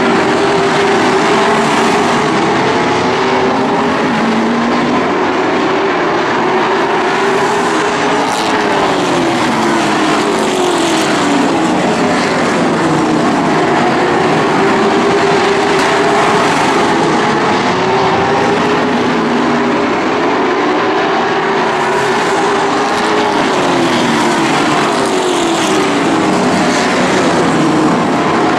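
A pack of late model stock cars racing, several V8 engines at once, their pitch rising and falling over and over as the cars accelerate and lift through the turns.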